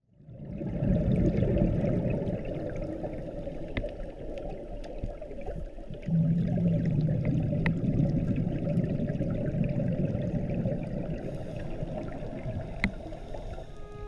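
Underwater water noise and the low rumble of a scuba diver's exhaled bubbles, a steady rush that grows louder about six seconds in. A few sharp clicks are heard.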